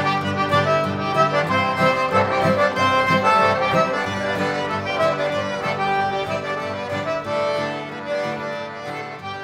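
Accordion-led music with a steady beat, slowly fading out toward the end.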